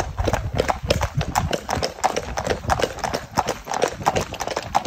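Hooves of several horses clip-clopping on a paved road at a trot: a quick, uneven run of sharp clicks.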